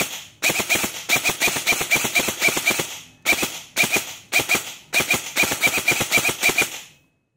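Airsoft electric rifle (AEG) with a programmable ETU firing in binary trigger mode, one shot on each trigger pull and another on each release. Rapid strings of sharp shots come in several groups with short pauses, and stop shortly before the end.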